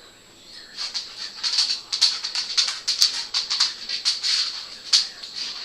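Fledgling songbirds' begging calls: a rapid run of short, high chirps starting about a second in, as the parent bird feeds them.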